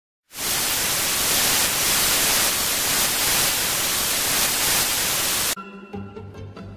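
Television static: a loud, even white-noise hiss that comes in just after the start and cuts off suddenly about five and a half seconds in, giving way to quieter music.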